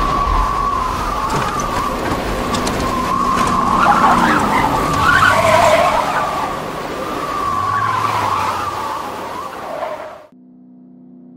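Snowstorm wind sound effect: a howling, wavering whistle over a steady rush of wind, swelling and fading, that cuts off suddenly about ten seconds in.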